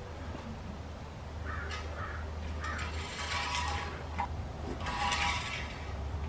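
Crows cawing: a pair of short caws about one and a half seconds in, then longer harsh caws around three and five seconds in, over a steady low hum.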